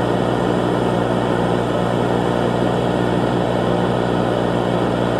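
A loud, steady low droning buzz with a rough hiss over it, unchanging throughout: a broadcast-style background drone.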